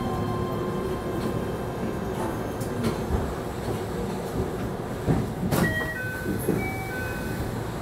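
Keihan 13000 series electric train drawing to a halt at a platform, with steady running and brake rumble. About five and a half seconds in comes a sharp click, then a short run of electronic chime tones at several pitches.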